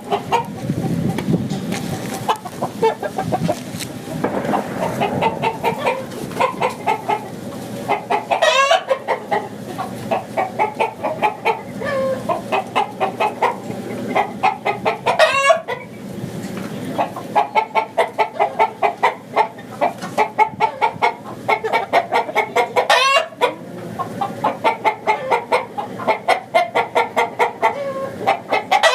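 Chickens clucking in quick, continuous runs, with three louder, higher calls spaced about seven seconds apart.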